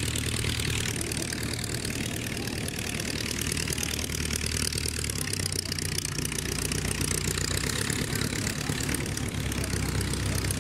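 De Havilland Tiger Moth biplane's Gipsy Major four-cylinder engine idling on the ground with the propeller turning, a steady low engine note that shifts in pitch about halfway through.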